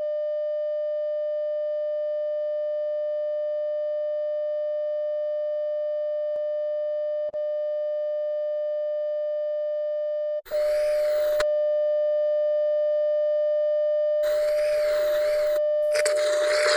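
Steady electronic test tone of a TV colour-bar screen, with a brief dropout about seven seconds in. Bursts of hissing, warbling static break in at about ten seconds, again at fourteen, and near the end.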